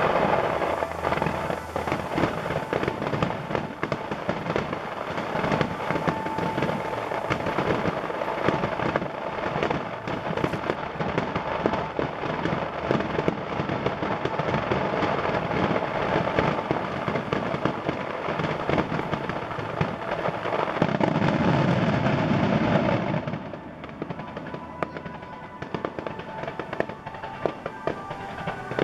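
Fireworks finale: dense, continuous crackling and popping of many shells bursting at once. Heavier booms build about 21 seconds in, then it thins to scattered crackles for the last few seconds.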